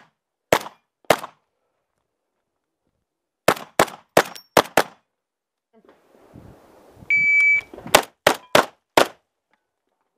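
Vepr-12 12-gauge semi-automatic shotgun firing in quick strings: two shots, then four, then four more near the end, each a sharp crack. Between the strings there is a soft rustle of handling and a short beep.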